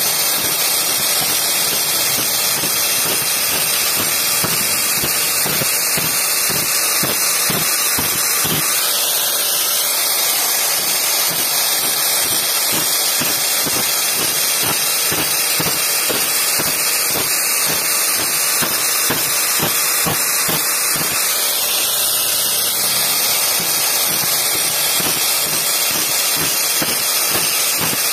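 Grinder spinning an old tile cutting disc against bandsaw blade teeth to sharpen them: a loud, steady hiss with a rapid, uneven patter of contacts underneath.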